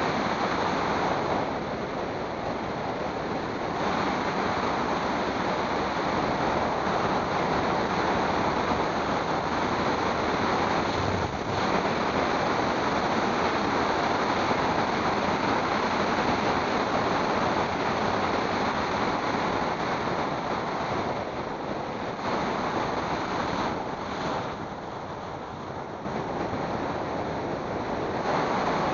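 Steady rushing wind noise on the microphone of a moving vehicle-mounted camera, mixed with road noise. It eases a little twice, a couple of seconds in and again near the end.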